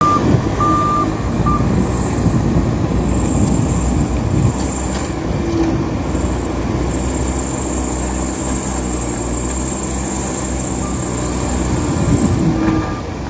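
Heavy earthmoving machine's engine running steadily under work, with a reversing alarm giving a few short beeps near the start and beeping again more faintly near the end.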